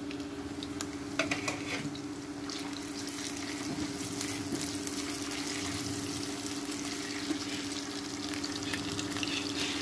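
Potato chunks and sliced onions sizzling as they fry in hot oil in a wok, stirred with a silicone spatula. A steady low hum from the induction cooktop runs underneath.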